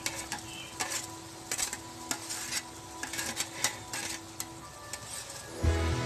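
Spoon and steel bowl scraping and clicking as ground coconut masala is added onto cooked vegetables in a steel pot: scattered, irregular clicks and scrapes. Background music comes in near the end.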